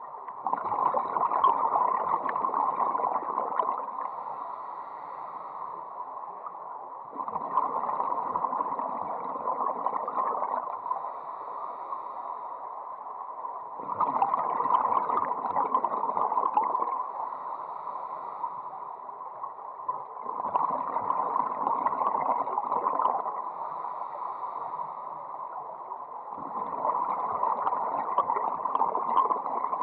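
Scuba diver's regulator breathing, heard underwater: five long bubbling exhalations, one about every six or seven seconds, with quieter gaps for the inhalations between.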